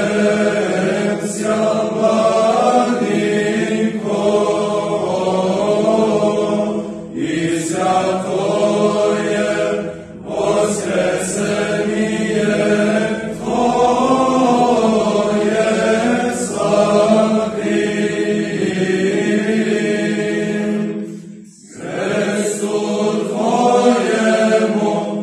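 Male choir singing Orthodox sacred chant a cappella in long, sustained phrases, with a short break between phrases a little before the end.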